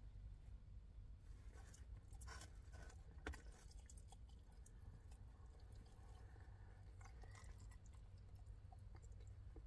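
Faint chewing of curry chicken on the bone, with a few soft, short clicks and smacks, over a low steady hum.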